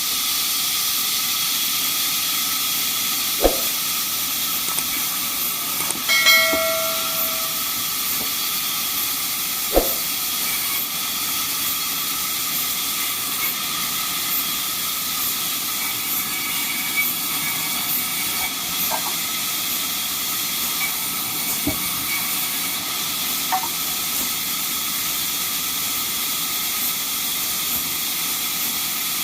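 Sawmill machinery running with a steady high hiss, broken by a few sharp knocks and a short squeal about six seconds in.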